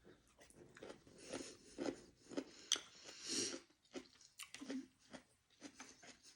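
A person chewing sushi with the mouth close to the microphone: irregular wet smacks and small crunchy bites, one after another.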